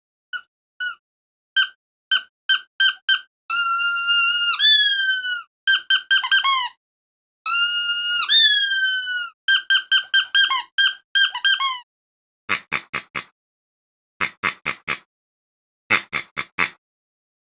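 Rubber squeaky dog toy squeezed again and again: short sharp squeaks, then two long held squeaks that bend up and fall away as the air runs out, then quick runs of squeaks. In the last few seconds come rasping squeaks in quick clusters of four or five.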